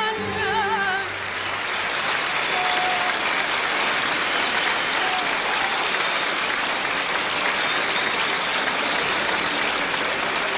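Concert audience applauding, breaking out as a woman's held, wavering sung note ends about a second in.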